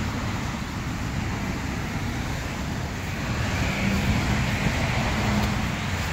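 Road traffic going by steadily, a low rumble that swells louder for a couple of seconds just past the halfway point.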